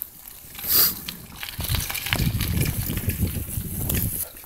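Wind rushing and buffeting on the microphone of a handheld camera on a moving bicycle, with small handling knocks. There is a brief loud hiss about a second in, and a heavy low rumble from about halfway through.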